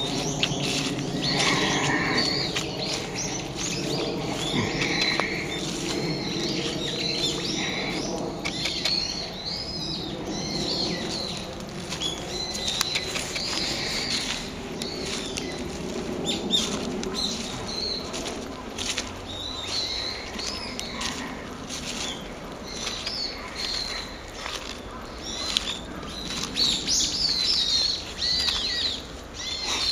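Brown-eared bulbul calling repeatedly: short, shrill rising and falling calls, coming thick and fast near the end. A lower wavering pitched sound runs beneath the calls through the first half.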